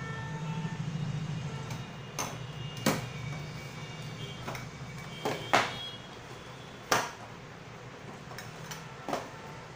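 Hard plastic spice jars and their plastic rack clicking and knocking as the jars are set into the rack and the rack is moved on a table: about six sharp clicks, the loudest near three, five and a half and seven seconds in. A low steady hum runs underneath.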